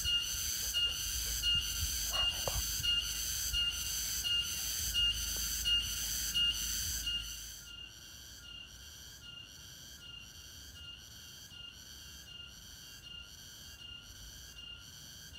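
An animal's high whistling call, repeated in even pulses about twice a second, going on throughout and much quieter from about halfway, with a low wind rumble under the first half.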